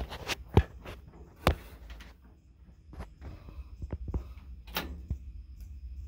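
Boots and handholds knocking on the metal steps and cab of a John Deere scraper as someone climbs up into the seat: a handful of sharp, separate knocks and clunks. The loudest knocks come in the first two seconds, with a few more about five seconds in.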